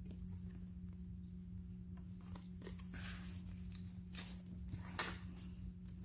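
Soft, scattered rustles of paper and fabric journal pages being handled, a few light brushes and taps over a steady low hum.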